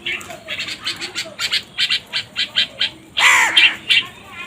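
Crows calling: a quick run of short, high calls, about four or five a second, then a louder, longer harsh caw about three seconds in, followed by a few more short calls.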